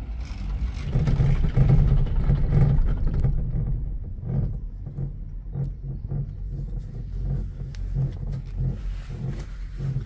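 Aerial ropeway running with its open cabin moving along the cable: a loud rush of noise for about the first three seconds, then a steady low rumble that pulses about twice a second.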